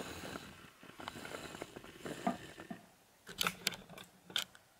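Handling noise: soft rustling and scattered light clicks as a loudspeaker woofer is held and turned in the hand, with a few sharper clicks and taps near the end.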